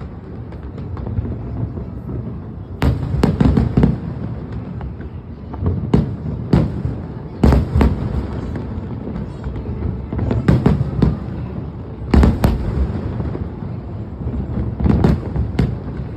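Aerial fireworks shells bursting in clusters of sharp bangs every few seconds, with a continuous low rumble between them.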